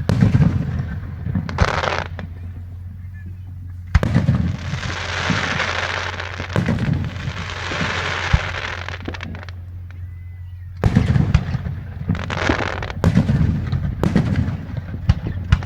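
Fireworks going off: several sharp bangs, a long fizzing hiss lasting about five seconds after the bang four seconds in, then a quick run of pops and crackles near the end.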